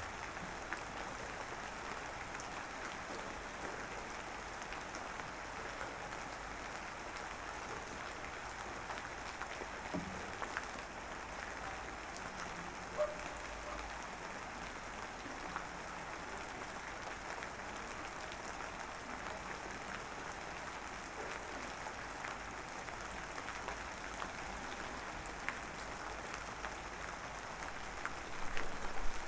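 Light drizzle falling: a steady soft hiss of fine rain with scattered small drop ticks. Louder, sharper spikes start about a second before the end.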